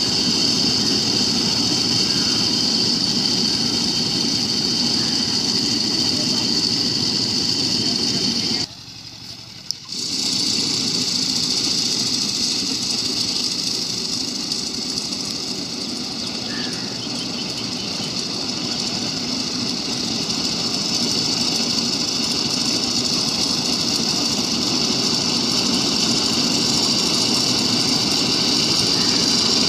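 Engine of a walk-behind, power-tiller-operated paddy reaper running steadily under load as it cuts standing rice. The sound drops out abruptly for about a second roughly a third of the way in, then resumes.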